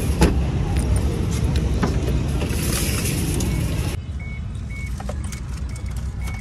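Car's warning chime beeping about twice a second while the driver's door stands open. It starts about four seconds in, when a low rumble drops away; there is a sharp knock just after the start.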